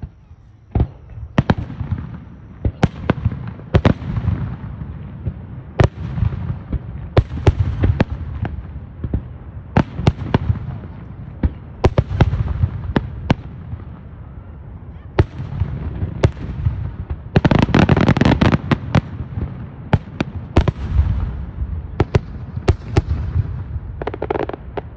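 Fireworks display: aerial shells bursting one after another in many sharp bangs over a low rolling rumble, with a dense burst of crackling about two-thirds of the way through.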